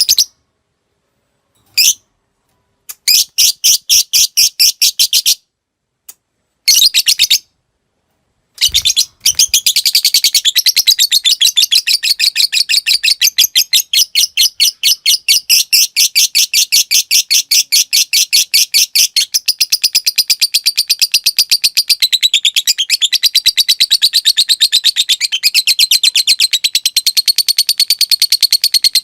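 Lovebird calling: a few short bursts of rapid, high ticking notes, then from about nine seconds in one long unbroken ngekek, a fast chattering trill of roughly ten notes a second.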